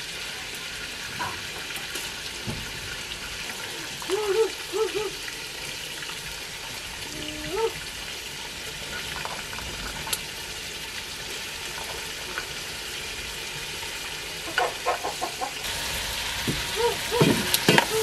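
Meat frying in hot fat in a large aluminium cooking pot over a wood fire, a steady sizzle. Near the end the sizzle gets louder as the pot is stirred with a wooden spoon, with a quick run of knocks against the pot.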